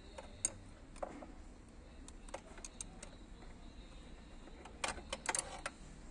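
Light metallic clicks and clinks of two 10 mm wrenches on the starter-motor nuts of a scooter. There are scattered single clicks, then a quick run of clicks near the end.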